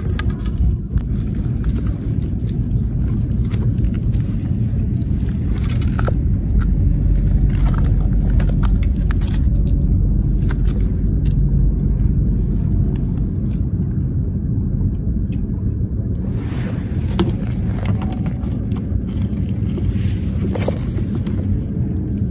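A steady low rumble with scattered light clicks and a brief hiss about three-quarters of the way through.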